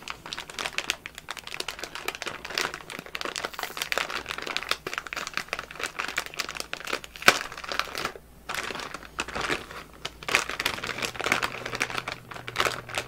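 Plastic anti-static shielding bag crinkling and crackling as it is handled and a graphics card is pulled out of it, with a short pause about eight seconds in.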